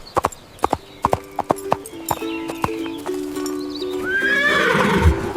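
Light background music with a run of sharp, irregular clicks in the first two seconds, then an animal call with a high, falling pitch and a low thud about four seconds in.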